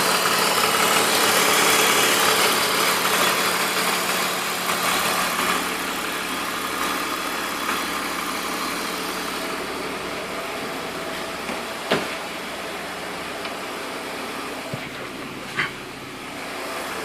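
BMW E46 323Ci's 2.5-litre inline-six engine running, louder for the first few seconds and then settling to a steady run, with two short clicks in the second half. The owner hears an odd noise from the car when he gives it gas.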